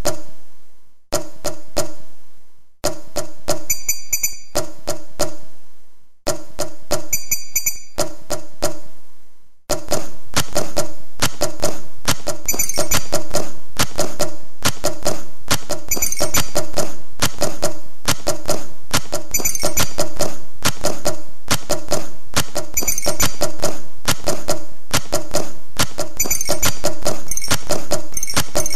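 Percussive music built from recorded tableware sounds: a fast, steady rhythm of clinks and taps with glassy ringing tones. In the first ten seconds it breaks off and rings away four times, then runs on without a break.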